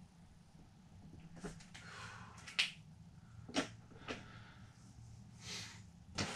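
Faint handling sounds: several sharp clicks and a few soft rustles as a tape measure and a sheet of paper on the wall are handled.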